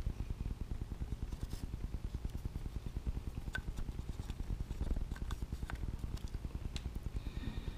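Steady low hum of a machine running in the background, pulsing rapidly, with a few faint clicks and taps from handling the marker and stick.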